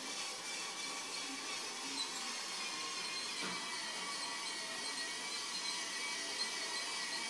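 Christmas toy train running on its track, a steady whir from its small electric motor.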